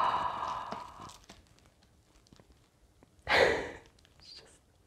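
A woman's breathy sigh of admiration, then a second sharp breath about three seconds in, with faint light ticks from handling the book in between.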